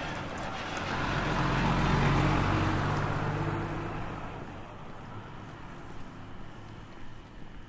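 A motor vehicle drives past, its engine and tyre noise swelling to a peak about two seconds in, then fading away over the next couple of seconds.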